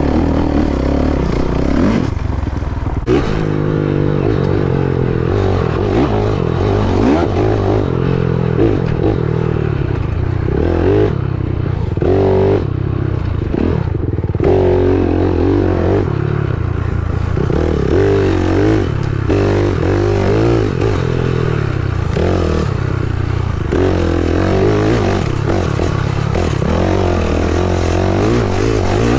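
Dirt bike engine revving up and easing off over and over as it is ridden, its pitch rising and falling through the gears.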